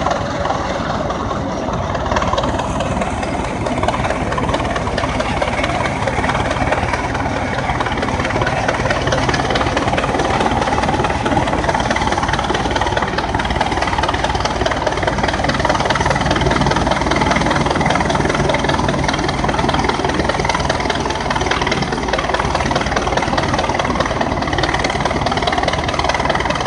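Aultman-Taylor gas tractor engine running steadily under load while pulling a walk-on sled.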